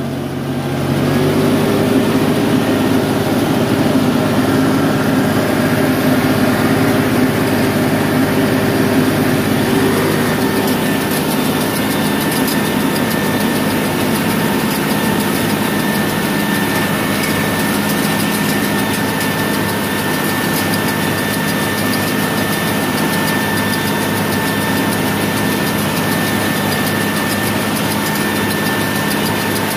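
Tractor engine running steadily under load, driving a round baler through its PTO shaft as it picks up a hay windrow. The engine picks up about a second in, then holds a steady pitch.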